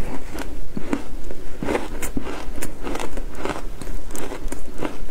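Frozen shaved ice being chewed, a run of sharp, uneven crunches, several a second.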